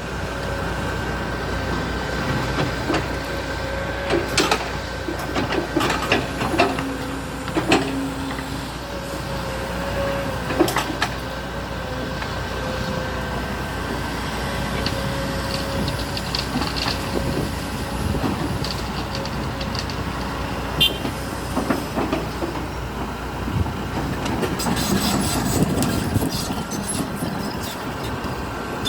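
Kobelco excavator running steadily with a held whine, and scattered sharp knocks from the machine at work.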